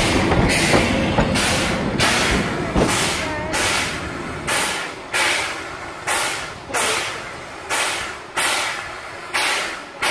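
Narrow-gauge steam locomotive puffing steam in a steady run of sharp chuffs, each dying away before the next, at first nearly two a second and slowing to a little over one a second. A low diesel rumble from the railcar beside it fades out in the first few seconds.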